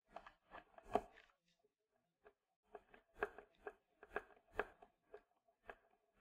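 Hard plastic clicks and knocks from a Dyson Cinetic Big Ball vacuum's ball shell being seated by hand, the loudest cluster about a second in. Then a run of sharp ticks as its centre screw is turned in with a screwdriver.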